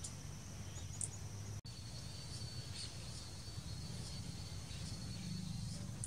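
Outdoor garden ambience: a steady high insect trill, with short high chirps about once a second and a low rumble underneath. About a second and a half in, the sound cuts briefly and the trill comes back at a lower pitch.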